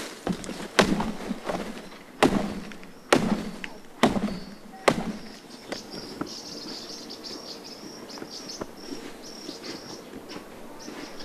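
Five sharp chopping strikes about a second apart, a machete cutting brush and dry grass, followed by insects chirping high and steadily for the rest of the time.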